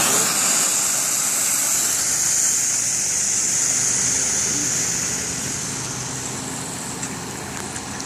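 High-pressure water jets from an ENZ Bulldozer sewer-jetting nozzle spraying out across wet gravel and rock: a loud, steady hiss of spray over the low hum of the jetter truck's engine driving the pump. The hiss eases off over the last few seconds.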